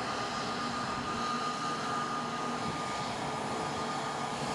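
Airbus A320neo jet engines running at taxi power: a steady rushing noise with a constant high whine.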